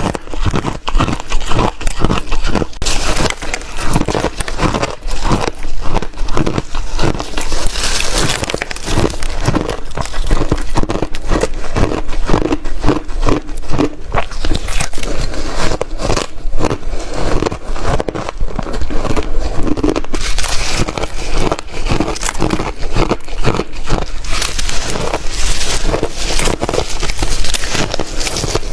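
Ice being bitten and chewed close to the microphone: loud, rapid crunching and crackling, several crunches a second without a break.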